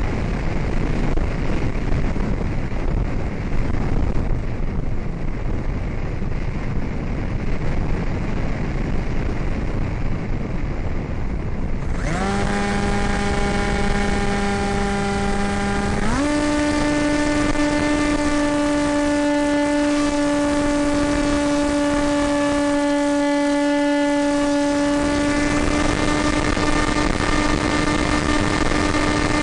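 Wind rushing over the onboard microphone of an AXN Floater RC plane. About twelve seconds in, its electric motor and propeller start with a quick rising whine. The pitch steps up again about four seconds later, then holds a steady drone under power.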